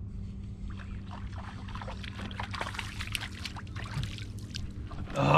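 Hooked crappie splashing and thrashing at the water's surface as it is reeled up to the boat: a quick run of splashes, with a louder burst right at the end. A steady low hum runs underneath.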